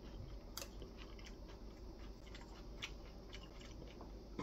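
Quiet eating sounds: chewing of salad, with small light clicks of a metal spoon and chopsticks against a ceramic bowl as the poke is stirred. A few sharper clicks stand out about half a second in, near three seconds and at the end.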